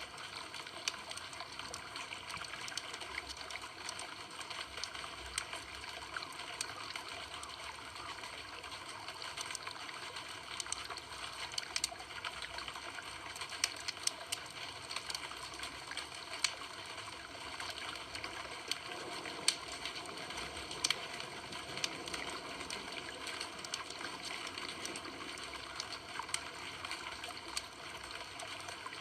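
Campfire burning, with irregular sharp crackles and pops over a steady hiss.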